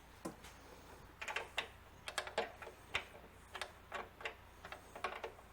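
Hand ratchet clicking in short bursts of a few sharp clicks, irregularly spaced, as bolts are run down on a car's cold air intake.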